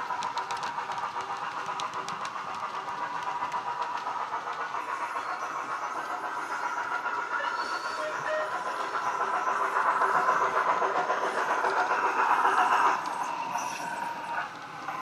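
Steam-locomotive sound from a model locomotive's DCC sound decoder (ESU LokSound 5 with Jamie Goodman sound) playing through a small tablet speaker, together with the model running on the track. It grows louder from about nine seconds in, then drops suddenly shortly before the end.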